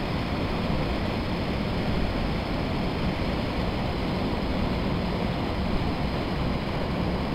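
Steady rushing noise of river water, with wind buffeting the microphone; no distinct events stand out.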